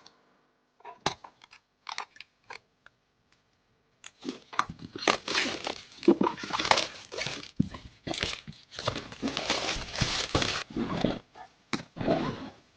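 A few scattered clicks and taps, then from about four seconds in, continuous crinkling and rustling of packaging being handled and unwrapped.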